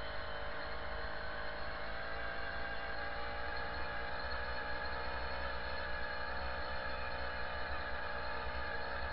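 Jawa Babetta 207 moped's 50 cc single-cylinder two-stroke engine running steadily under way, with wind rumble on the helmet microphone.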